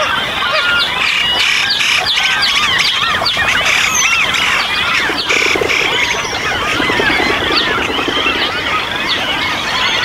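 A dense chorus of many birds calling at once, a thick tangle of overlapping squawks and chirps. About halfway through, a lower, rapidly repeated call joins in for a few seconds.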